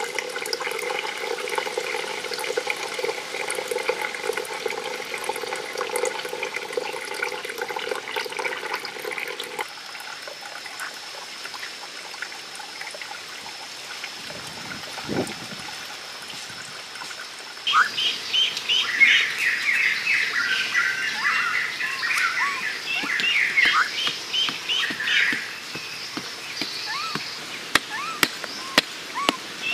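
Water trickling from a pipe spout into a small stone garden pond, steady for the first third, then birds chirping in many short calls through the second half. Near the end come sharp hits of a tool digging into dry earth.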